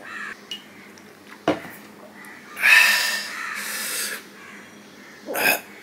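A man drinking water from a steel tumbler. The tumbler is set down with a short clink about a second and a half in, then comes a loud breathy vocal sound after the drink, with a shorter one near the end.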